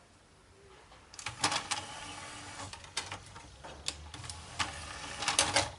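Samsung DVD home cinema's disc drive mechanism whirring and clicking for a few seconds as it tries to read a disc that does not spin, then stopping abruptly. A sign of the no-disc fault, which the repairer puts down to a weak lens pickup or else the disc motor.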